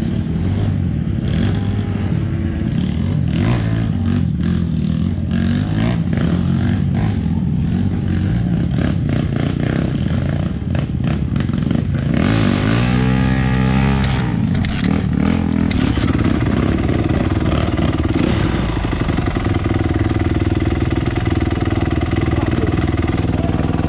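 Off-road dirt bike engine running through the gears, its revs rising and falling with the throttle, with frequent knocks and clatter from rough ground. About halfway through the engine pitch swings sharply down and back up.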